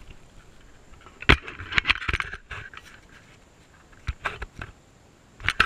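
Handling noise from a small action camera being set down on a dirt trailside: a sharp knock, then a cluster of scraping and knocking, and a few lighter knocks later on.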